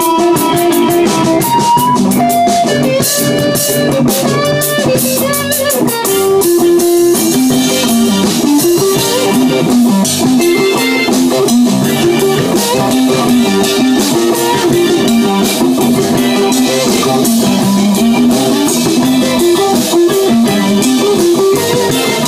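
Live rock band playing: an electric guitar line with gliding notes over bass and a drum kit with cymbals.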